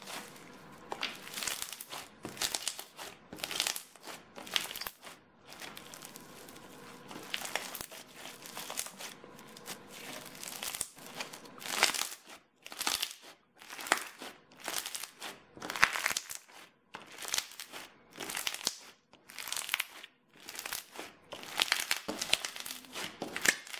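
Yellow crunchy foam-bead slime being squeezed and kneaded by hand: an irregular run of short squishy, crunching squeezes, about two a second, as the beads grind and rub inside the slime.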